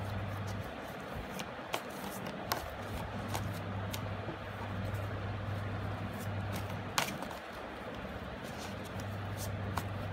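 A deck of tarot cards being shuffled by hand: soft rustling with a few sharp card clicks, three of them standing out, over a steady low hum and hiss.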